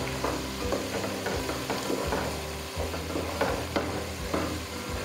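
Wooden spatula scraping round an aluminium pot as it stirs a frying masala of browned onion, ginger-garlic paste and spices, in short repeated strokes over a steady sizzle of hot oil.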